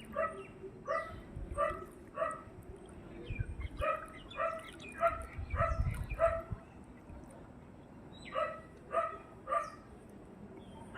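A dog barking repeatedly, in three runs of barks about half a second apart, over a low rumbling background noise.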